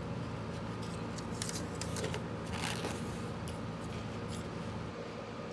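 Light handling sounds: a few soft clicks and a short scraping rustle near the middle, over a steady low hum.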